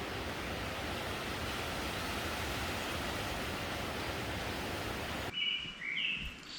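Wind blowing with a steady rushing noise that stops abruptly about five seconds in. Then a bird gives a few short high chirps.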